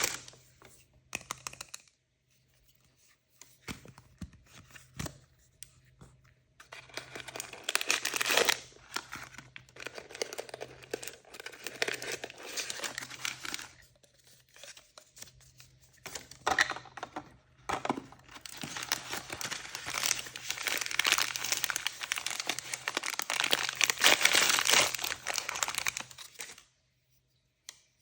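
Packaging from surprise toys and blind bags being torn open and crinkled by hand, in several spells of rustling and tearing with short pauses between.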